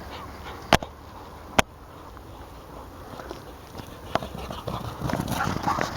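Several dogs galloping across the ground, their paws pounding like a bunch of horses, growing louder from about four seconds in. Two sharp clicks sound within the first two seconds.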